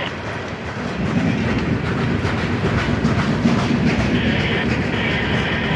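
Ferromex freight train's covered hopper cars rolling past: a steady rumble of steel wheels on rail with clacking over the rail joints. The low rumble is heaviest through the middle, and a high hiss drops away about a second in and returns near the end.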